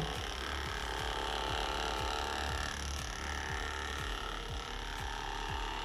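BioZoom percussion massage gun running with its soft yellow tip pressed on the upper trapezius at the base of the neck, a steady low motor hum at its 60 Hz pulse setting.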